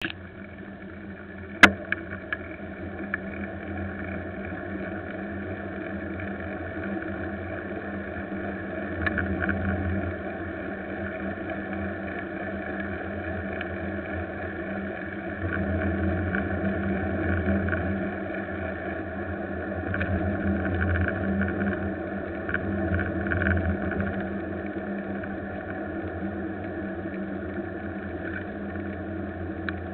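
Steady drone of a moving vehicle's road and wind noise picked up by a camera riding along the street, swelling louder for a few stretches, with one sharp knock about a second and a half in.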